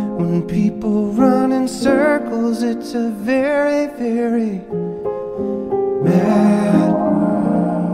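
Background music: a slow song with a wavering sung melody over instrumental accompaniment for roughly the first half, after which the instruments carry on alone.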